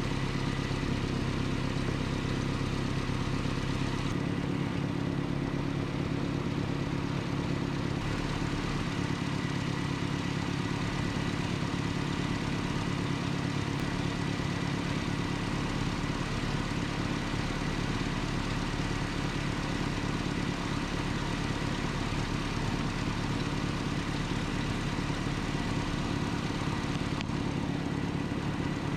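Nissan Z24 2.4-litre four-cylinder engine idling steadily, with no surging in its speed.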